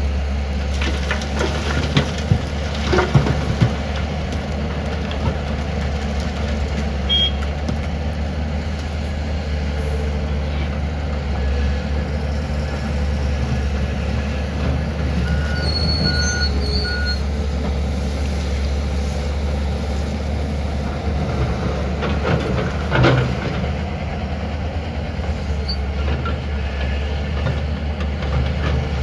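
Excavator loading a tipper truck: a heavy diesel engine runs with a steady low drone, with clanks and knocks of the bucket and load, loudest a couple of seconds in and again about two-thirds of the way through. A few short high beeps sound about halfway.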